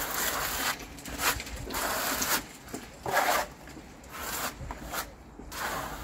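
Small steel trowel scraping and spreading a plaster-like compound over an insulation board in repeated short, irregular strokes. The loudest stroke comes about three seconds in.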